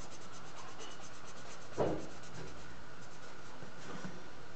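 Felt-tip marker scratching back and forth on paper in quick repeated strokes while a drawing is coloured in, with a single soft thump about two seconds in.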